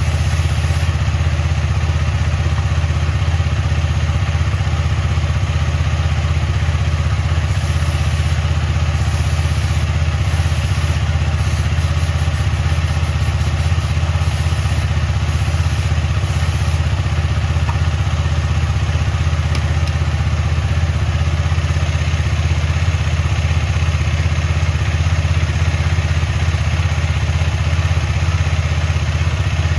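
KTM Duke 250's single-cylinder engine running steadily, with no change in revs.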